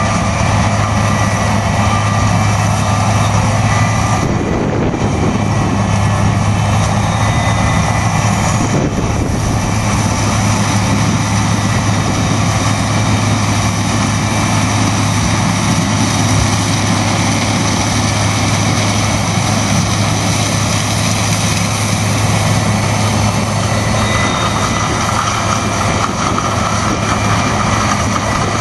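Heavy diesel farm machinery running steadily at harvest, a constant low engine hum with a slight change in tone about 24 seconds in.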